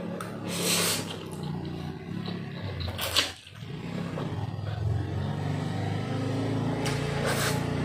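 A person slurping instant noodles from a fork: three slurps, about a second in, about three seconds in (the loudest), and near the end, over a low steady hum.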